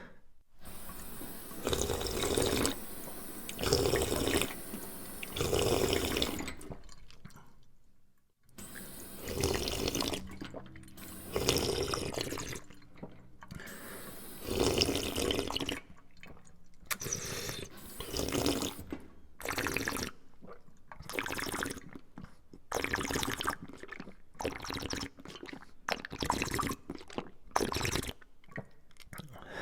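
A person drinking: a series of gulps and swallows, several about a second apart, broken by short pauses.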